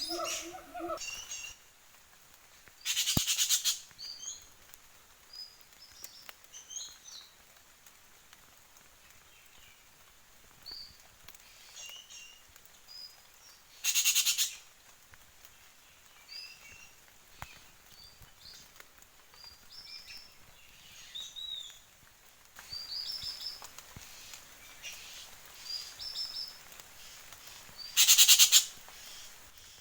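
Forest birds calling with scattered short high chirps and whistles. Three loud, harsh bursts about a second long come at roughly 11 to 14 second intervals, near the start, the middle and the end.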